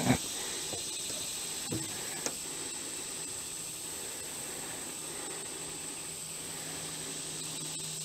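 Steady high-pitched drone of insects, with a couple of short knocks in the first two seconds and a faint low hum that sets in about halfway through.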